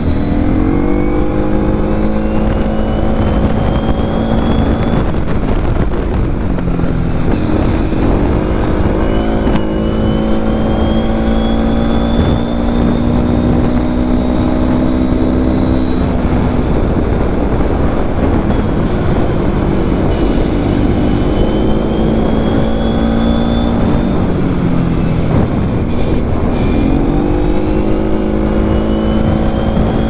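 Kawasaki KFX 700 V-Force quad's V-twin engine under way on the road, its revs climbing and levelling off several times as it accelerates. Wind rushes over the helmet microphone underneath.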